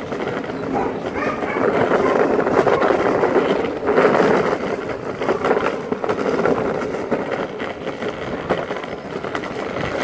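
Longboard wheels rolling over pavement: a steady rolling roar with fine clicks, loudest about three to four seconds in.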